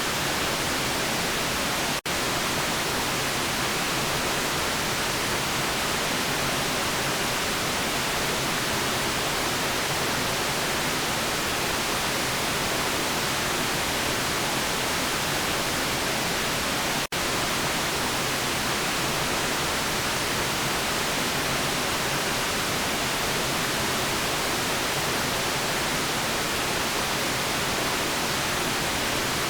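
Steady white noise, an even featureless hiss strongest in the high range. It cuts out for an instant twice, about 2 and 17 seconds in.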